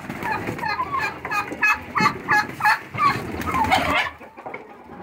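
Domestic poultry, chickens and turkeys, calling as the flock comes out of the coop. A run of short repeated calls, about three a second, dies down about four seconds in.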